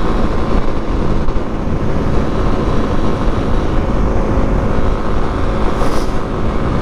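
Wind rushing over the microphone at highway speed, with the Kawasaki KLX250's single-cylinder engine running steadily underneath.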